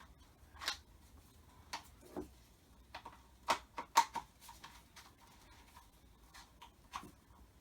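Plastic parts of a pressure washer's spray gun and lance clicking and knocking as the lance is pushed and fitted into the gun: irregular sharp clicks and taps, the loudest two close together about halfway through.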